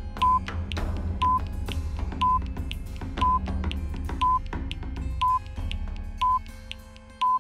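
Quiz countdown timer beeping once a second, eight short, high, identical beeps, over background music with a low bass line and light percussion ticks; the music fades near the end.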